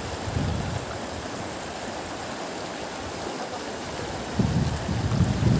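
River water rushing steadily, with low gusts of wind buffeting the microphone from about four seconds in.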